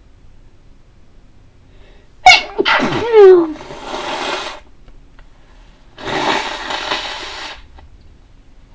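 A person sneezing once, loud and sudden about two seconds in, its pitch falling as it trails off into a noisy exhale. A few seconds later comes a longer breathy rushing sound of about a second and a half.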